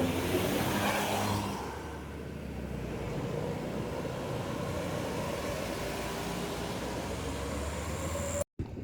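Bus engine and road noise, steady, with the engine note slowly rising. A louder rush of noise comes in the first second and a half, and the sound cuts off abruptly near the end.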